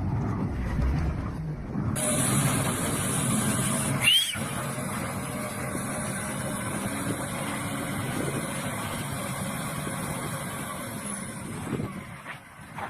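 Road vehicle noise, with an abrupt change in the sound about two seconds in and a short sharp sound about four seconds in.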